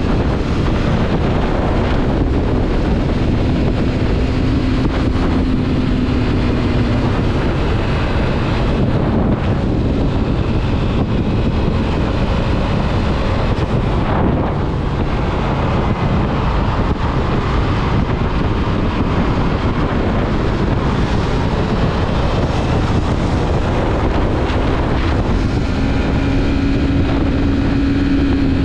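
Yamaha MT-03 motorcycle being ridden, its engine running at a steady speed under heavy wind rush on the microphone.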